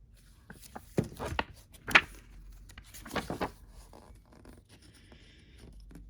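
Paper rustling and a few short scrapes and soft knocks as a book and box contents are handled, loudest around two seconds in.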